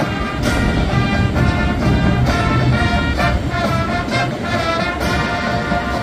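College marching band playing live, the brass holding chords that change every second or so over sharp drum hits.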